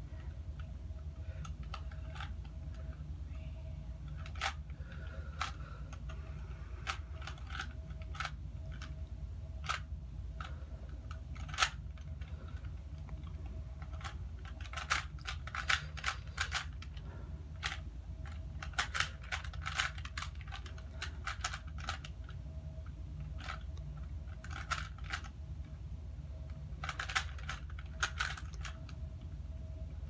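Rubik's brand 3x3 plastic cube being solved by hand: its layers turning with irregular clicks and clacks, some single and some in quick runs of several turns, with pauses between.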